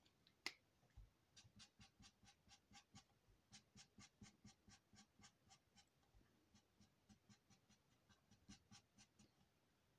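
Felt-tip nib of a Twinmarker alcohol marker stroking on paper: faint, short, repeated shading strokes at about four a second, after a single click about half a second in.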